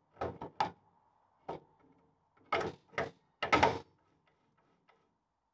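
Land Rover Series 2 front half shaft being slid by hand into the axle through the stub axle. It makes a string of short metal clunks and scrapes, and the loudest few come in quick succession about three and a half seconds in.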